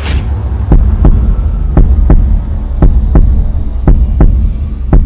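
Produced intro sound effect: a heartbeat-style double thump repeating about once a second, five times, over a steady low droning hum, with a brief whoosh at the start.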